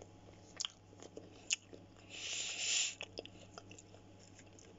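A person chewing a mouthful of fried chicken and waffle fries close to the microphone, with a louder half-second burst a little over two seconds in. A few sharp clicks come from a metal fork against the baking tray.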